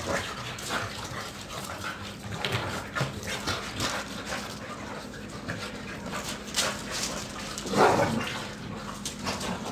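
Two Boxer dogs play-fighting, whining and barking in short, irregular bursts, with one louder cry about eight seconds in.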